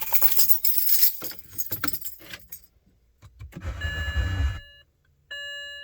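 A bunch of car keys jangling and clicking as they are handled, then a short low rumbling noise and two steady electronic beep tones near the end.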